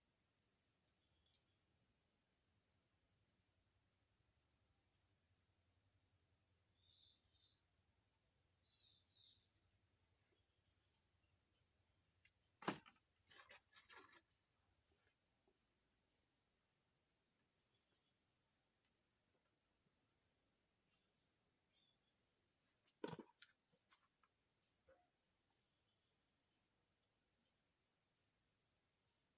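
Insects, likely crickets, droning steadily in a continuous high-pitched chorus. Two short sharp clicks or knocks cut through it, about 13 seconds in and again about 23 seconds in, with a few faint chirps earlier on.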